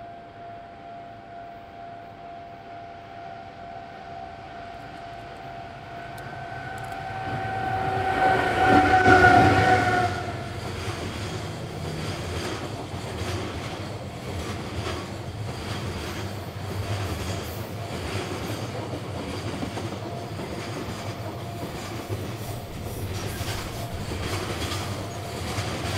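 EF81 electric locomotive hauling a container freight train passes close by. A steady high tone grows louder, peaks and stops as the locomotive goes past about ten seconds in. The container wagons then roll past with a steady rumble and a rhythmic clickety-clack of wheels over the rail joints.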